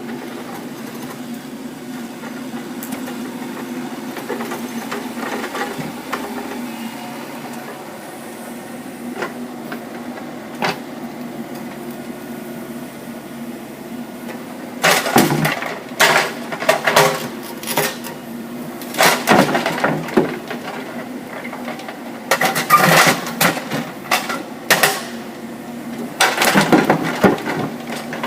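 Kubota mini excavator's diesel engine running steadily. From about halfway through come about six loud bursts of scraping and clatter as the 4-in-1 bucket works material.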